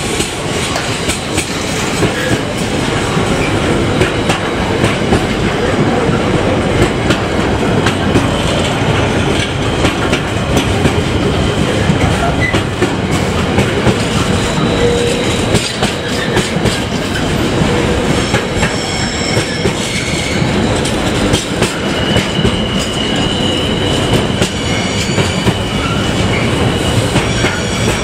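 A train running past on the track, its wheels clattering steadily over the rail joints, with thin high wheel squeals joining in during the second half.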